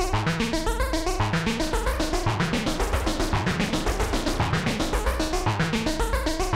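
Modular synthesizer sequence patched through a Doepfer A-138m matrix mixer, playing a repeating pattern of quick, evenly pulsing bass and lead notes with a gritty, wobbling tone from audio-rate frequency modulation. Around two seconds in the texture turns rougher and noisier, then settles back into clearer notes near the end.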